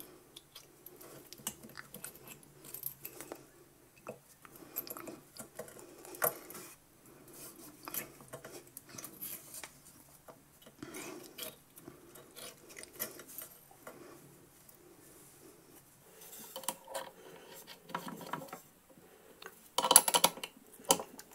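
Small irregular metallic clicks and scrapes of a steel clearing pin being worked inside a hollow 8 mm diamond tile drill, prising out firmly packed granite core debris. A louder brief clatter near the end.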